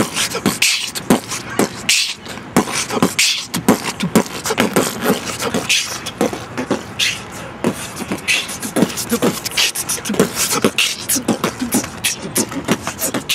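Beatboxing into cupped hands: a fast, continuous run of mouth-made kick-drum thumps, snare clicks and hissing hi-hat sounds.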